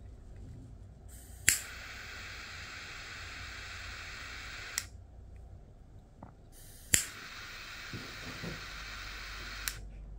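Butane jet torch lighter fired twice, each time a sharp click of the igniter followed by a steady hiss of the jet flame for about three seconds, ending in a smaller click as it shuts off. The flame is heating the brass cap of a wooden Vapman vaporizer.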